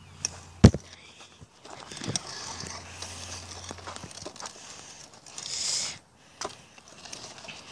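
Kick scooter being handled on loose gravel and dirt: scraping and crunching, with a sharp knock less than a second in and a few lighter clicks later.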